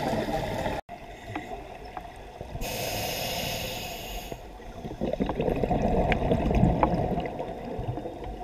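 Scuba diver breathing through a regulator underwater: a hiss of inhaling about three seconds in, then gurgling exhaled bubbles, with scattered small clicks.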